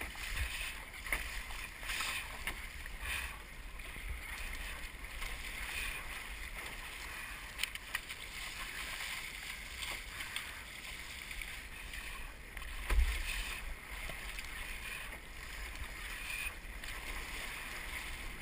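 Epic V10 Sport surf ski being paddled through choppy sea: water splashing at the bow and repeated paddle strokes swishing through the water, over a low rumble. One loud thump stands out about 13 seconds in.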